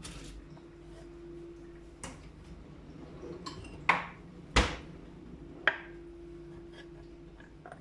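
Household objects being handled: four sharp knocks and clinks, the loudest a thump about four and a half seconds in. A faint low hum comes in twice, each time for a second or two.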